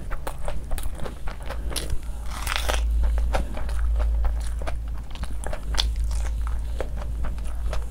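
Close-miked eating: wet chewing and biting into curried meat, with many small crunches and mouth clicks and a denser crunching stretch about two and a half seconds in.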